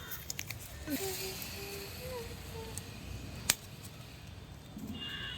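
Low steady rumble of outdoor background with a few faint ticks near the start and one sharp click about three and a half seconds in.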